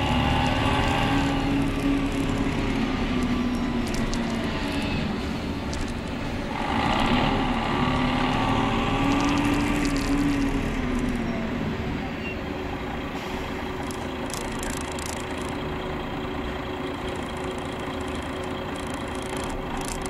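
City bus engine heard from inside the cabin, a droning hum whose pitch rises and falls as the bus pulls away and changes speed. It quietens to a steadier running noise about twelve seconds in, with scattered light rattles.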